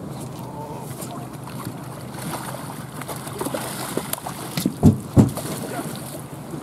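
A large hooked fish thrashing and splashing at the surface beside an aluminum boat as it is netted, over steady river and wind noise. Two heavy thumps come close together about five seconds in.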